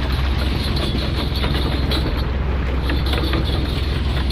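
Small fishing boat's engine running with a steady low drone, with scattered light clicks and knocks over it.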